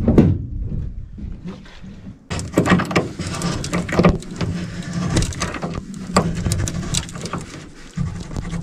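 A heavy two-stroke outboard motor lands on an aluminium boat's transom with a knock, then irregular metal clicks and rattles as its transom clamp screws are turned by hand.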